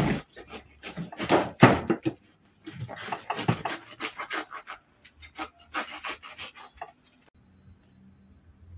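Serrated knife sawing through a ripe jackfruit's knobbly rind, with repeated rough rasping strokes. It stops suddenly about seven seconds in.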